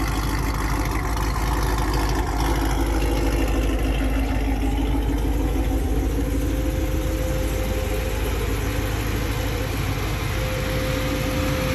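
2018 Camaro SS's 6.2-litre LT1 V8, fitted with a Holley Hi-Ram intake manifold, idling steadily. A steady high tone joins in about halfway through.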